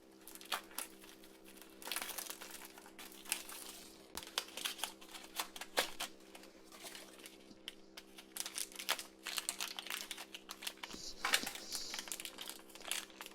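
Plastic packaging of a Shopkins blind basket crinkling and tearing as it is opened by hand, with many small clicks and rustles of handled plastic.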